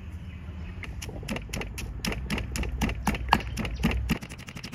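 Pestle pounding chillies, shallots, garlic and herbs in a stone mortar: regular knocks about four a second, getting quicker near the end.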